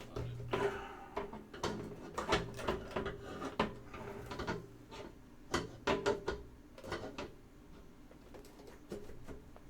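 A hard drive being pushed into a computer case's drive bay: a string of knocks, clicks and scraping as the drive catches and is forced in, thinning out near the end.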